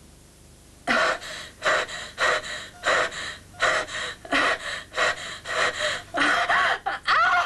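A man gasping and hyperventilating in fast, heavy breaths, about one and a half a second, the later ones strained and voiced: a person in acute distress fighting for breath.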